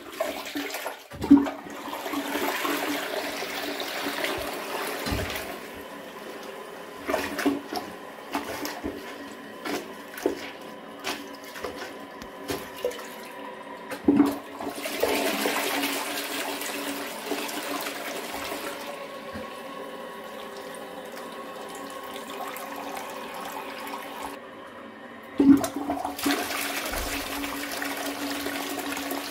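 Toilet flushing three times while a mop is worked in the bowl to clear a clog. Each flush starts suddenly, about a second in, midway and near the end, and is followed by several seconds of rushing water, with short knocks and splashes from the mop between flushes.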